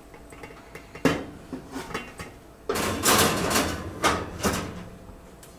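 Covered cooking pot clanking and scraping against a metal oven rack as it is set into the oven. There is a sharp knock about a second in, then about two seconds of scraping and clatter ending in two more knocks.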